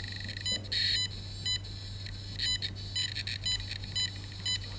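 Cornet electrosmog meter's audio output giving short, irregular electronic beeps, one of them longer, over a faint steady hum; the beeps track the RF bursts from a phone connecting to 4G LTE.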